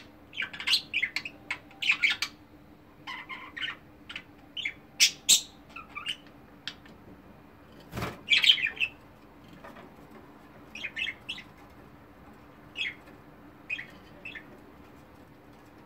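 Budgerigars chirping and chattering in short, quick calls, busiest in the first half and sparser later. A single sharp knock comes about eight seconds in.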